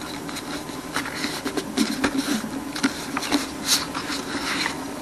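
Thin box cardboard being folded and creased by hand against a tabletop: irregular rustling, scraping and small taps.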